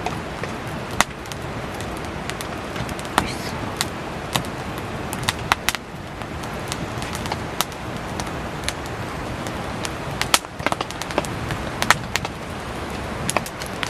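Wood campfire crackling, with irregular sharp pops, over the steady hiss of heavy rain.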